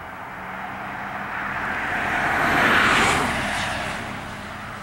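A car driving past on the road, its noise rising to a peak about three seconds in and then fading as it moves away.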